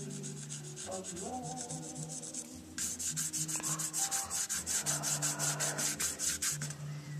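Quick, rhythmic back-and-forth rubbing strokes, several a second, as brown colour is worked onto the edge of a guitar body along its binding. The strokes get much louder about three seconds in and stop shortly before the end.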